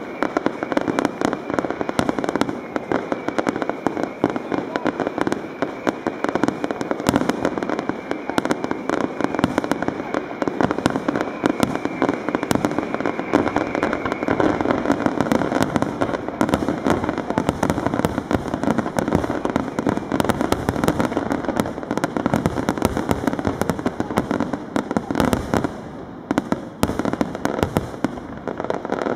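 Fireworks display: a dense, continuous barrage of shell bursts and crackling, many sharp bangs overlapping one another, thinning briefly about three seconds before the end.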